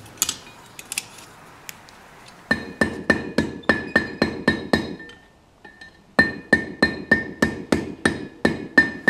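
Hand hammer striking hot steel bar over the horn of an anvil, bending curves into the handle. It comes in two quick runs of about a dozen blows each, roughly five a second, with a pause of about a second between, and each blow leaves a high ringing note from the anvil.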